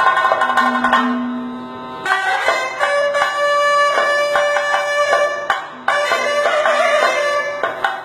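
Traditional Kerala music: chenda drum strokes under held melodic notes. The music changes abruptly about two seconds in and again about five and a half seconds in.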